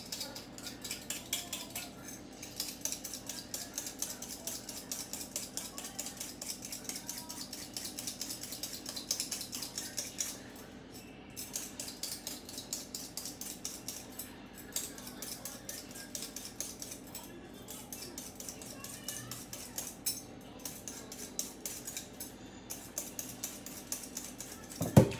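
A raw potato being peeled by hand: quick, repeated scraping strokes of the peeling blade on the skin, several a second.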